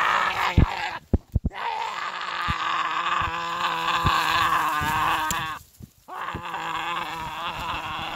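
A man making long, loud, wordless growling vocal noises with his face against the trunk of a small spruce, as if gnawing it down. The noises come in two long stretches, broken briefly near six seconds, with a few sharp knocks about a second in.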